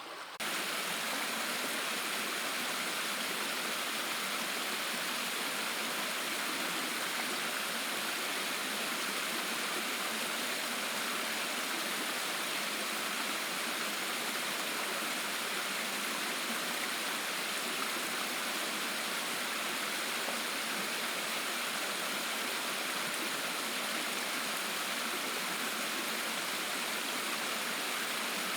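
Creek water pouring over a waterfall, a steady rushing of water.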